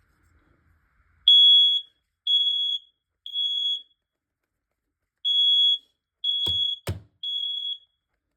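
Smoke alarm sounding its high-pitched alarm beep in the temporal-three pattern: three half-second beeps, a pause, then three more. This is the standard fire-alarm signal, meaning the detector has tripped. Two sharp clicks come between the last beeps.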